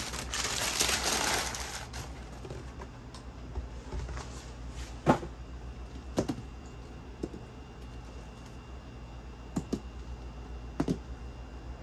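Tissue paper crinkling as it is pulled back from the shoe box for the first two seconds, then a handful of light knocks as the sneakers are handled and set down on a hard surface, the loudest about five seconds in.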